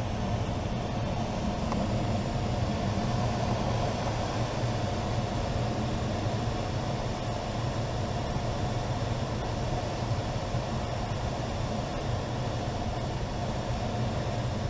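Steady rush of airflow around a glider's cockpit on final approach, with the airbrakes fully extended.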